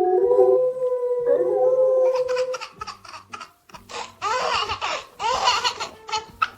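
A dog howling in long, held notes, followed from about four seconds in by a baby's loud, short cries or squeals in quick bursts.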